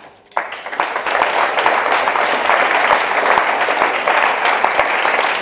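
Audience applauding: many hands clapping, breaking out about a third of a second in and keeping up steadily.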